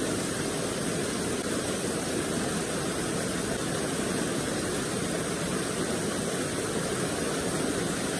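Steady, even rush of a small river waterfall: water pouring over a low concrete weir and cascading down rocks into a pool.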